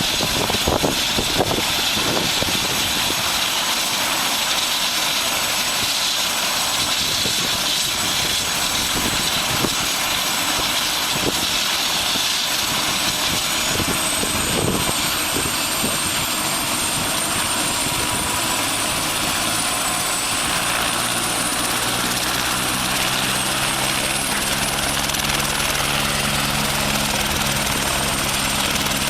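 Helicopter running steadily with a dense rush of rotor and engine noise. About halfway through, a high thin whine comes in and rises slightly in pitch, and in the last third a low drone with an even pitch joins it.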